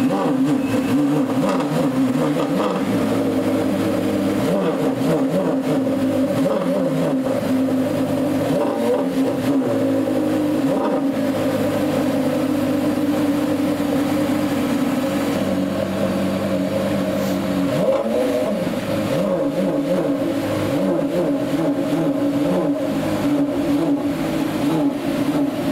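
Porsche Carrera GT's 5.7-litre V10 idling steadily on a cold engine, its exhaust steaming.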